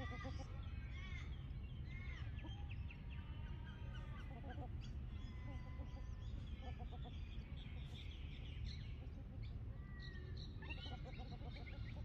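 Birds calling: many short chirps and whistled notes, among them calls of the Australian wood ducks grazing in view, over a steady low rumble.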